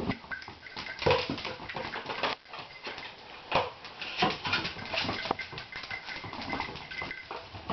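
A miniature dachshund tussling with a long cardboard tube on a vinyl tile floor: irregular knocks, bumps and scrapes as the tube is dragged and dropped, with the dog scuffling around it.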